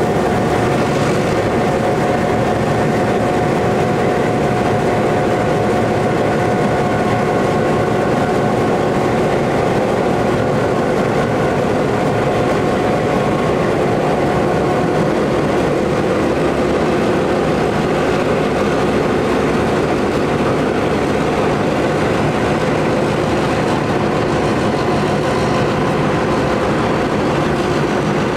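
Diesel locomotives, among them Victorian Railways T-class T342, running as they pull a train slowly away along the platform. It is a steady, loud engine drone with held tones.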